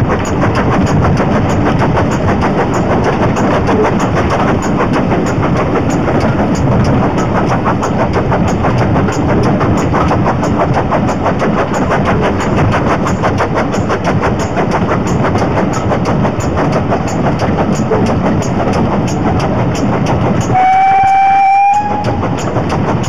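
Steam-hauled heritage train running, heard from an open carriage window: a steady, loud rumble with an even, rhythmic beat. Near the end the locomotive's whistle sounds one short blast of about a second.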